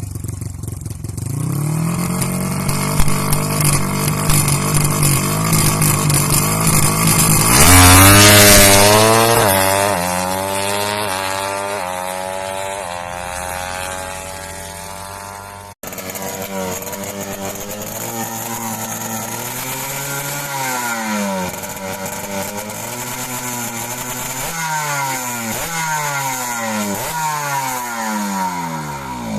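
Drag-racing motorcycle engine being revved while it is tuned. It runs steadily, rises sharply about eight seconds in and slowly winds back down, then, after a cut, gives a string of short throttle blips.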